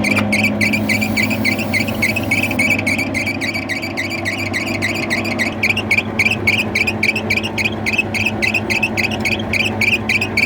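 HVAC fan running with a steady low hum and a rhythmic high chirping tick, about four a second, which thins out for a moment early on: the fan noise fault being shown.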